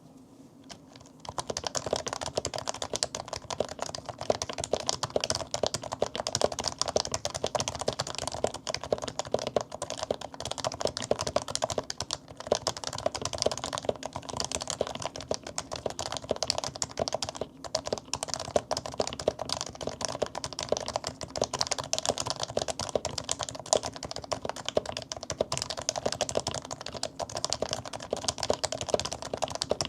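Fast, continuous typing on a 2007 HHKB Pro 2 Topre-style electrostatic capacitive keyboard (non-silent, aged 55 g domes, lubed housing rails and stabilisers), starting about a second in. The spacebar is poppy and snappy.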